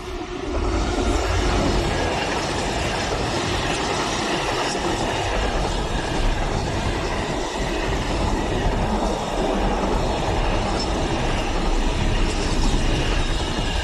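Class 66 diesel freight locomotive, with its two-stroke V12 engine, passing close by, followed by a long rake of container flat wagons rolling past with a steady loud rumble and wheel-on-rail noise. The sound rises sharply about half a second in and stays loud.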